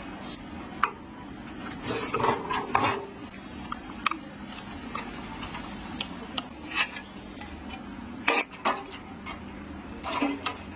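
Irregular metallic clinks and knocks, like hand tools and metal parts being handled and set down, over a steady low hum.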